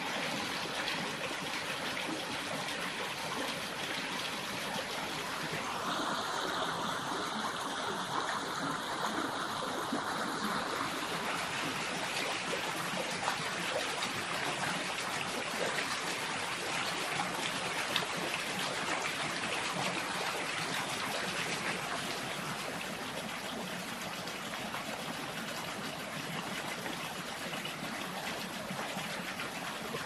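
Steady sound of running water from a stream.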